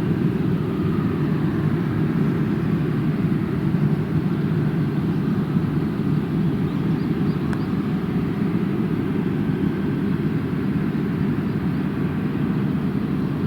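Airliner engines running at takeoff power as the aircraft departs, a steady loud rumble.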